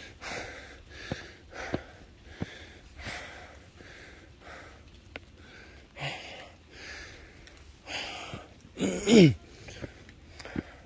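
A man breathing hard and fast while climbing steep stairs, out of breath, with a loud sigh falling in pitch about nine seconds in.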